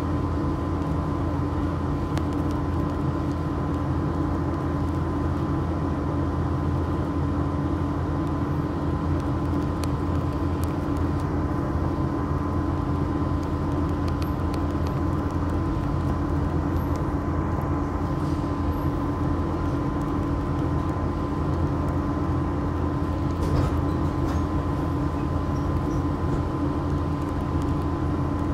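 City route bus's diesel engine running steadily, heard from inside the passenger cabin, with a faint steady whine above the engine sound.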